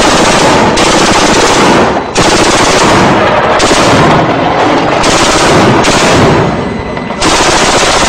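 ZSU-23-4 Shilka's four 23 mm autocannons firing in long bursts, the shots so fast they merge into one continuous sound, with brief breaks about two seconds in and shortly before the end.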